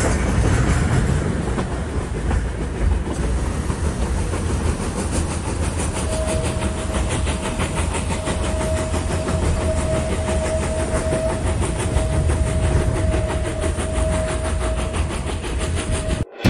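Metre-gauge steam train running, heard from an open carriage: steady rumble and rushing noise with a fast run of wheel clicks on the rails. About six seconds in, a steady high tone starts and holds for about ten seconds.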